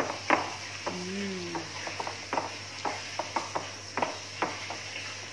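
Chicken strips being mixed in a bowl with beaten egg and corn flour: irregular wet clicks and taps throughout, with a short hummed voice about a second in.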